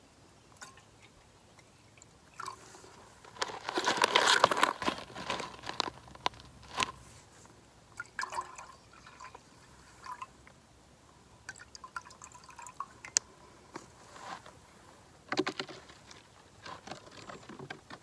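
Camp cooking gear being handled at a backpacking stove: intermittent rustling, crinkling of plastic packaging and small clicks, with a louder, denser stretch of noise about three to five seconds in.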